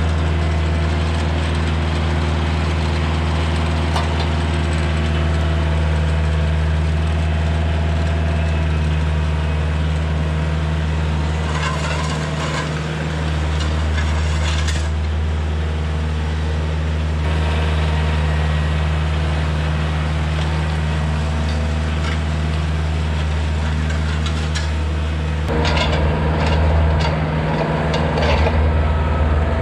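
Kioti compact tractor's diesel engine running steadily as it pulls a landscape rake through wood shavings and dirt. About 25 seconds in, the sound becomes louder and noisier, heard up close from on the tractor, above the rake.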